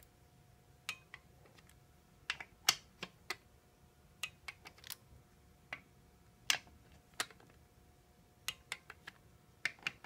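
Torque wrench and socket on the oil pump bolts of a 42RE transmission: a string of irregular sharp metallic clicks as each bolt is checked at 15 foot-pounds.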